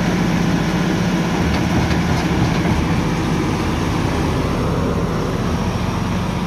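Front-loader tractor's diesel engine running steadily with a constant low hum.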